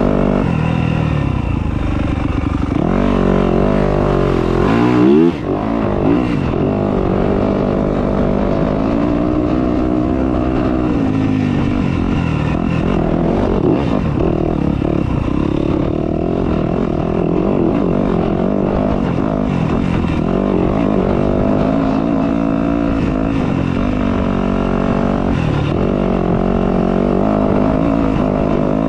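Dirt bike engine running under load while riding a trail, its pitch rising and falling again and again as the throttle opens and closes, with a quick sharp rev about five seconds in.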